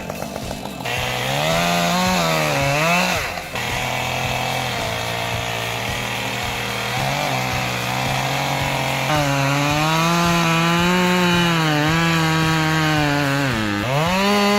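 Chainsaw running at high revs while cutting wood, its engine pitch rising and sagging as the chain bites, with two sharp drops in pitch, about three seconds in and near the end.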